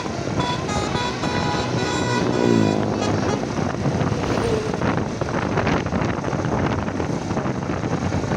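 Basuri 'telolet' musical bus horn playing a quick tune of short notes for the first couple of seconds. Around the loudest moment a tone slides down in pitch, and the horn gives way to the steady rushing noise of the bus going by.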